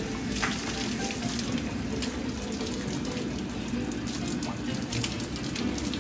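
Steady rush of water running into and churning a stone soaking tub (ofurô).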